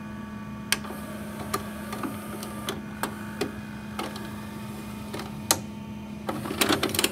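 Steady electrical hum with irregular sharp clicks and crackles, turning into a quick run of clicking near the end.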